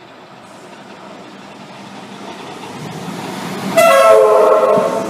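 Comeng electric train approaching slowly, its rumble growing steadily louder. Near the end its horn sounds in one loud, sudden blast lasting over a second.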